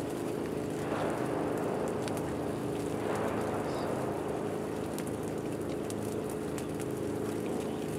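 Steady machine hum made of several steady low tones, under an even hiss.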